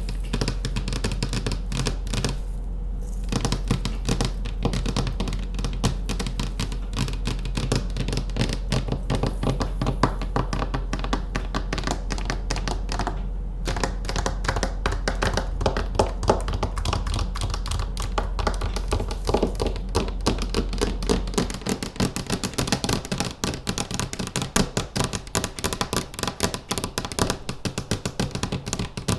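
Manicured fingernails tapping fast and continuously, a dense run of small clicks. A low hum underneath stops about three-quarters of the way through, leaving the taps more distinct.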